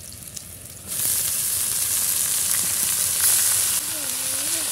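Chopped red amaranth greens (lal shak) dropped into hot oil with fried garlic and green chilli in a wok, breaking into a loud, steady sizzle about a second in.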